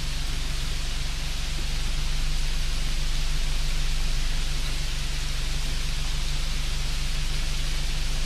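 Steady, even hiss over a low hum, with no distinct clicks or taps standing out.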